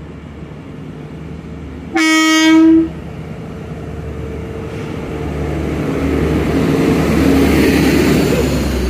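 Transport for Wales Class 175 diesel multiple unit sounds a short single-note horn about two seconds in, then runs past close by, its diesel engines and wheels on the rails growing steadily louder as it draws level.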